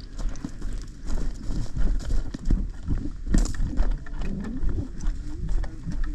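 Footsteps of a person walking outdoors, with irregular knocks and rattles of carried gear and a low rumble on the microphone.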